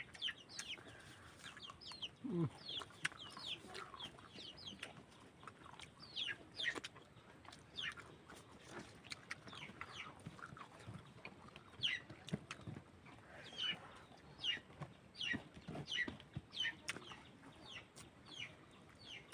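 Birds calling faintly: many short, high peeps, each falling in pitch, scattered irregularly, a few every second.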